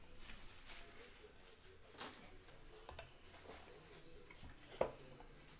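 Faint handling sounds of a cardboard trading-card box being opened: light rustles and a few soft knocks as the lid comes off a foam insert and a clear plastic card case is lifted out, the sharpest knock a little under five seconds in.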